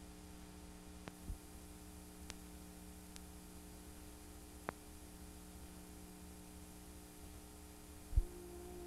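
Steady electrical hum from blank videotape playback, with a few faint scattered clicks and low thumps; the loudest thump comes near the end, followed by a second, higher steady tone.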